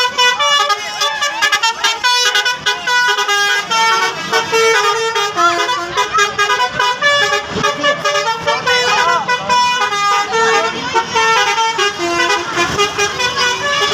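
Bus telolet horn playing a tune: a quick run of stepped horn notes, several tones sounding together as the melody moves.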